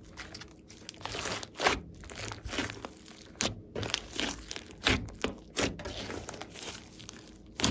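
Large glossy slime with clay and floam mixed in, squeezed and kneaded by hand: a wet squishing with irregular sharp pops and crackles, several of them loud.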